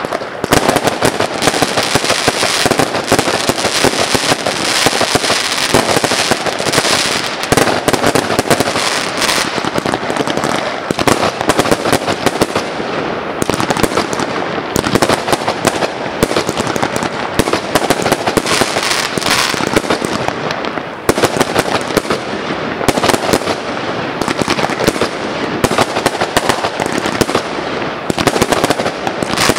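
Aerial fireworks going off in a rapid, continuous barrage, a dense string of bangs that barely lets up.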